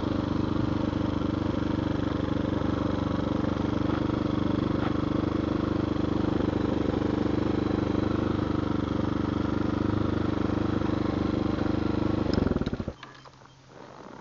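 Tao Tao TBR7 motorcycle's small single-cylinder engine running steadily at low speed, then shut off about twelve seconds in and dying away quickly. A few light clicks come after it near the end.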